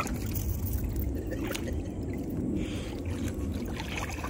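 Shallow water sloshing and splashing in a plastic kiddie pool as a dog steps and paws around in it.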